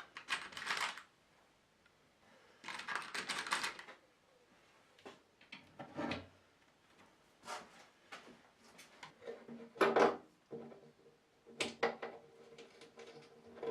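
Small hard parts clinking and clattering as they are handled, in short bursts of rattling with scattered knocks. A faint steady ringing tone runs under it in the last few seconds.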